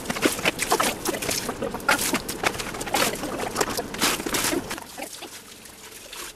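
Irregular splashing and knocking in standing floodwater, thinning out about five seconds in.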